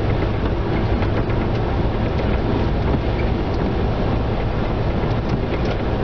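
Steady low rumble and hiss inside a patrol car's cabin, with scattered faint ticks.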